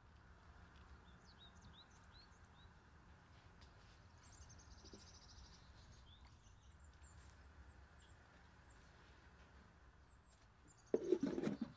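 Faint bird chirps and a short trill over a low hum. Near the end comes a brief, much louder burst of noise lasting under a second.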